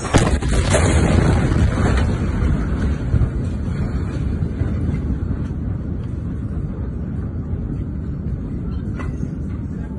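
A huge explosion: a sharp bang at the start, then a heavy low rumble that slowly fades away.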